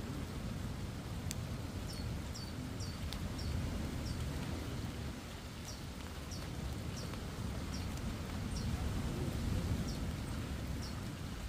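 Steady low rumble of rough-weather wind and sea at the shore, with a series of short, high, falling chirps repeating roughly once a second.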